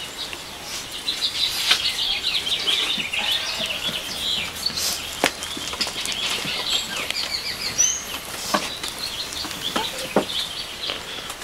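Many small birds chirping and twittering continuously in a dense chorus, with a few sharp clicks or knocks now and then.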